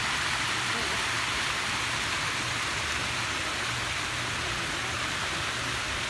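Water from a small rock waterfall splashing steadily into a stream.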